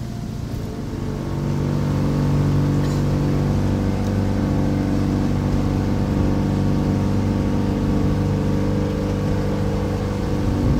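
Small sightseeing boat's outboard motor running, picking up speed over the first couple of seconds and then holding a steady hum.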